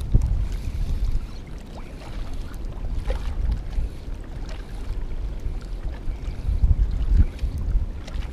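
Wind buffeting the microphone: a low, uneven rumble that swells and eases in gusts.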